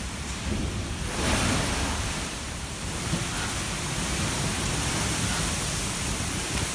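Steady rushing noise of typhoon wind, with rumble on the microphone, swelling about a second in.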